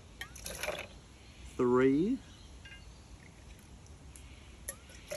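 Tequila being poured from a bottle and jigger into a cocktail shaker: a short splash of liquid about half a second in.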